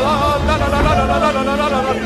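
Background music: a sung melody over a steady beat.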